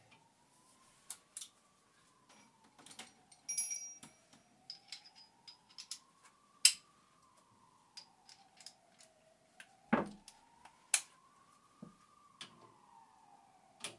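Scattered sharp clicks, knocks and a brief jingle of hand tools and plastic trim as the cowl air-intake grille under the windscreen is worked loose. Behind them a faint tone slowly rises and falls about every five seconds.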